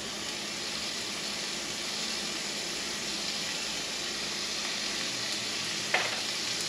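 Mahi-mahi fillets sizzling steadily in hot coconut oil in a frying pan, with a short tap about six seconds in as another fillet is set down.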